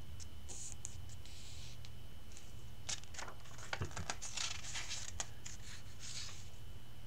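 Paper pages of a thick hardcover comic collection rustling as a hand slides across them and turns a page, with scattered scratchy rustles and a few light clicks, busiest in the middle.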